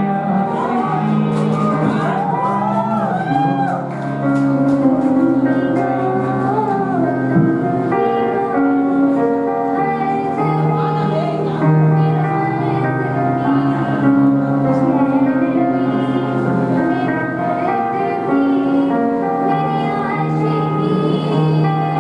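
Music: a song with a singing voice over sustained instrumental chords, the voice gliding in pitch a second or so in.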